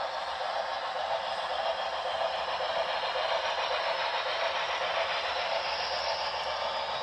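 Model freight cars rolling along the track: a steady rolling noise of the wheels on the rails.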